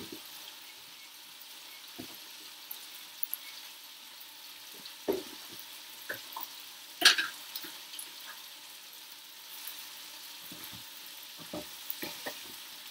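Chicken pieces sizzling as they brown in a skillet: a steady frying hiss. A few sharp clicks and knocks break through it, the loudest about seven seconds in and several near the end as a utensil turns the chicken in the pan.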